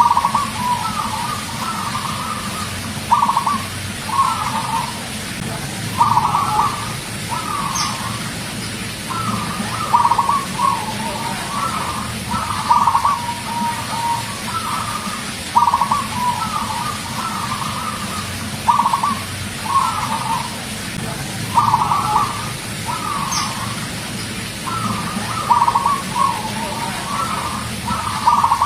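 Zebra dove (perkutut) singing, repeating its short trilled cooing phrase every second or two over a steady low hum.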